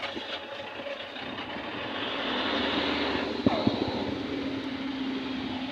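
A stone dropped down a deep ground-pile hole: a loud, jet-like whoosh with a steady ringing hum that swells over the first few seconds, echoing up the shaft, with a sharp crack about three and a half seconds in.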